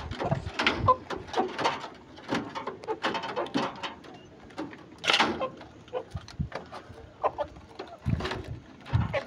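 Young chickens feeding at a wooden trough: rapid, irregular taps of beaks pecking the feed and wood, with chicken calls mixed in. One louder, harsher sound comes about five seconds in.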